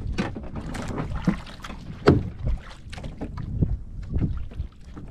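Irregular knocks and taps on a wooden outrigger boat as freshly caught skipjack tuna are taken off a multi-hook lure, over a low rumble of wind on the microphone. The sharpest knock comes about two seconds in.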